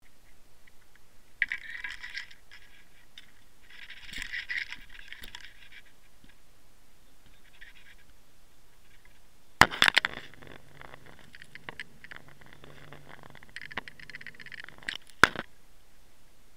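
Handling noise of fishing gear on a boat deck: two short spells of rustling, then a cluster of sharp clattering knocks about ten seconds in, scraping and rattling after it, and one more sharp knock near the end.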